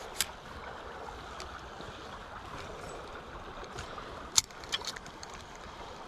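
Small creek flowing steadily over a log jam, a constant rushing of water. A few short sharp clicks and snaps sound over it, the loudest about four and a half seconds in.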